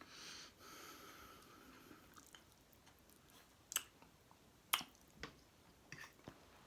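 Close-miked mouth sounds of a person chewing roast duck leg. A breathy hiss runs through the first two seconds, then come soft chewing and several sharp wet clicks, the loudest nearly five seconds in.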